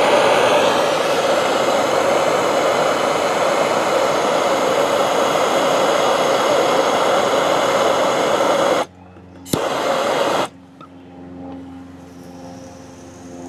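Hand-held Bernzomatic gas torch burning with a steady hiss as it heats a steel bolt. The flame is shut off about nine seconds in, relit with a click for about a second, then shut off again.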